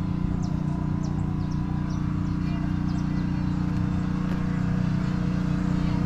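A steady engine drone with a low, even hum, overlaid by scattered short high chirps.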